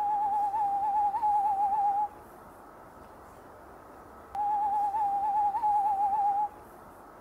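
Owl calling: a long, even trill on one pitch, given twice, each about two seconds long, the second about four seconds in.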